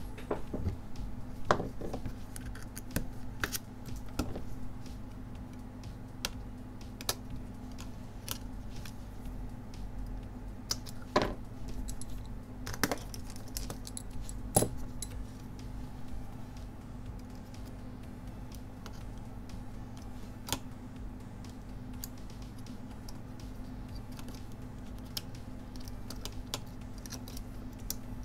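Small metal tools and screws clicking and tapping on a workbench while a phone is taken apart with precision screwdrivers: irregular sharp clicks, a few louder than the rest, over a steady low hum.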